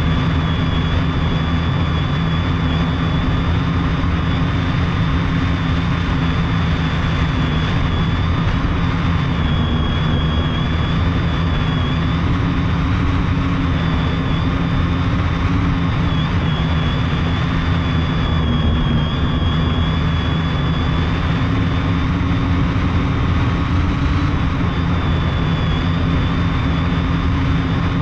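Multirotor drone's brushless electric motors and propellers running steadily in flight, heard close up from a camera on the frame. A dense low rumble and hum with a thin high motor whine that wavers slightly in pitch.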